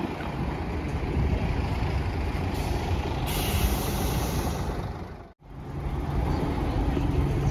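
Scania Touring coach engine idling at a standstill, with a hiss of compressed air from the coach's air system starting about two and a half seconds in and lasting about two seconds. The sound breaks off for an instant just after five seconds, then the idle goes on as a steady low hum.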